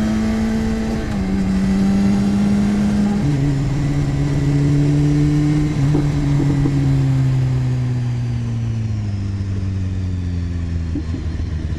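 Sport motorcycle engine running at road speed, stepping down in pitch twice in the first few seconds as it shifts up, then falling steadily in pitch as the bike slows.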